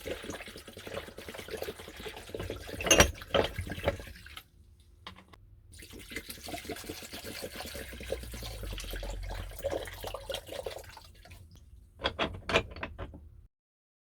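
Vinegar pouring and splashing into a tub holding rusty steel wrench parts, with sharp metal clinks, the loudest about three seconds in and a quick run of them near the end. It stops abruptly shortly before the end.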